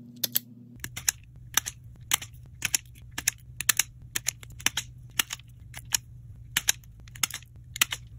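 Self-adjusting wire stripper clamping and stripping insulated hookup wire: repeated sharp clicks, often in quick pairs as the jaws snap shut and spring open, about one to two a second, over a steady low hum.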